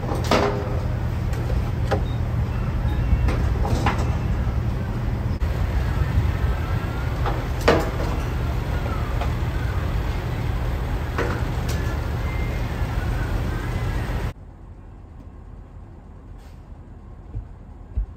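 Steady low diesel engine rumble of a semi truck at the fuel pump, with scattered metallic clanks and knocks as the diesel nozzle is handled at the tank. About fourteen seconds in, the sound cuts abruptly to a much quieter hum.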